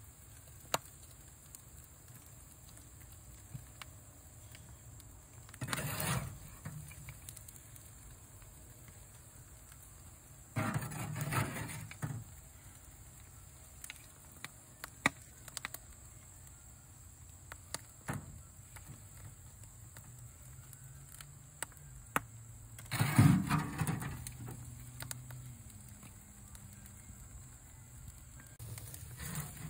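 Metal spatula and tongs scraping and clinking on a smoker's grill grate while pig tails are turned: three short scraping rushes and scattered light clicks over a low steady hum.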